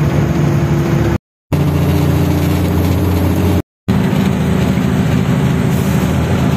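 Diesel engine of a 1960-model Tata truck running steadily under way, heard from inside the cab with road noise. The sound drops out briefly twice, about a second in and again past three and a half seconds.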